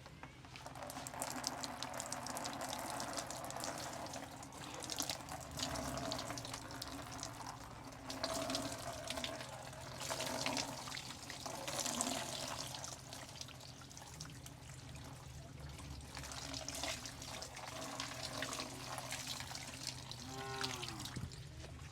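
Water splashing and wet hands squelching and rubbing through soaked hair and scalp during a hair wash, in uneven swells with dense little crackles. A short squeak falls in pitch near the end.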